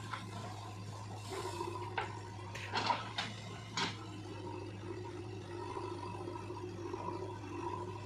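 Steady diesel engine drone of a JCB 3DX backhoe loader working, as its front loader bucket tips a load of soil into a tractor trolley: a rush of falling earth about a second in, then several sharp knocks and thuds between two and four seconds in.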